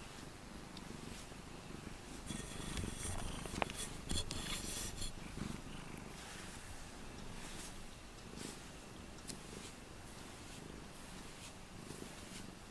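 Domestic cat purring steadily in a low rumble while being stroked. Brief rustling and a sharp click come a few seconds in.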